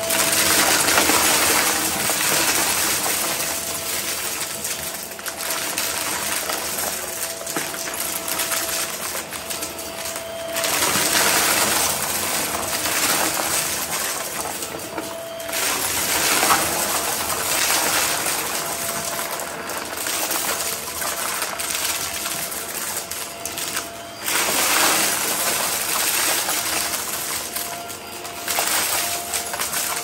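Hart Pro upright vacuum running with a steady motor whine while it sucks up a pile of crunchy confetti-like debris, the bits crackling and clattering up through the nozzle into the bin. The noise swells and eases several times.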